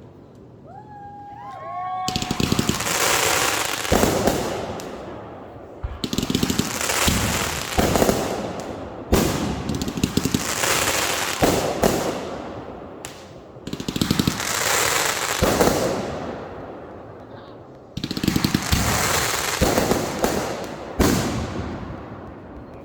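Consumer fireworks going off in repeated volleys: sharp bangs and dense crackling in waves every couple of seconds. The first two seconds are quieter, with a few short whistling tones.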